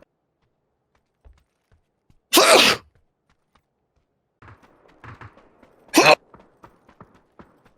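A person who is ill sneezing twice: a longer sneeze a little over two seconds in and a short, sharp one about six seconds in, with faint clicks and rustles in between.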